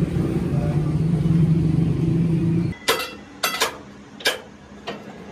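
A loud, steady workshop motor hum cuts off about two-thirds of the way in. It is followed by four or five sharp metallic clanks as a steel strip is handled at a three-roll plate-bending machine.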